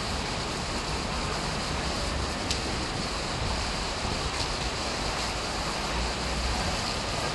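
Steady rushing noise of tropical-storm wind and rain, with gusts buffeting the microphone.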